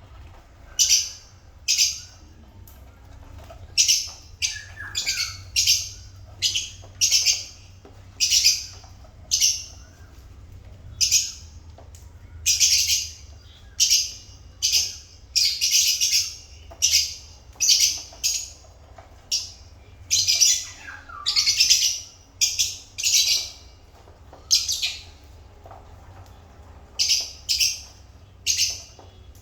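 African lovebirds calling: short, shrill, harsh chirps repeated irregularly, about one or two a second, with brief pauses between runs.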